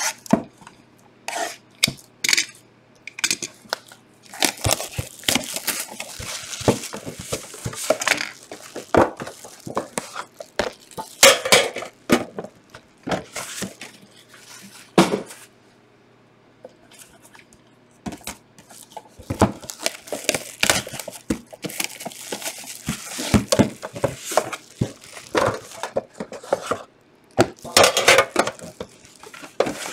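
Sealed Panini Immaculate Soccer boxes being opened and handled. A box cutter slits the shrink wrap, the wrap crinkles and tears, and the boxes knock, slide and clatter, including a metal box tin, in a string of irregular clicks and scrapes. There is a short lull about halfway through.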